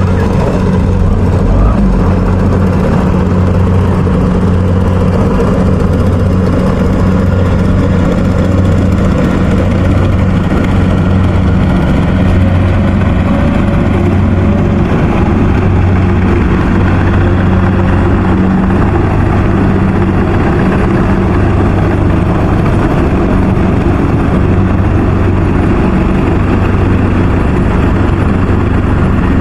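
Rice combine harvester's diesel engine running steadily at constant speed, loud and even, with a low hum and no change throughout.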